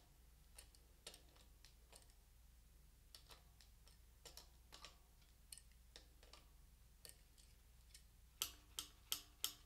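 Faint, scattered metal clicks of pliers working the adjuster ring on a bicycle brake lever. Near the end comes a quick, even ticking, about three ticks a second, each with a short metallic ring.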